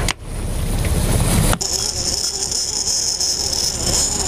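Boat under way at trolling speed: Yamaha outboard running, with water rushing along the hull and wind on the microphone. The sound cuts off sharply just after the start and changes abruptly about a second and a half in, after which a steady high-pitched hiss rides over the low rumble.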